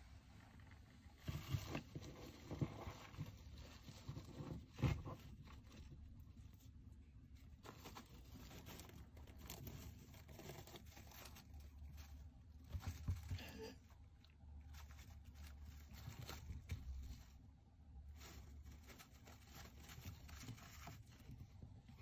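Faint, irregular scraping and rustling in a dwarf hamster's plastic cage with wood-shaving bedding, broken by scattered knocks and clicks, the sharpest a little before five seconds in.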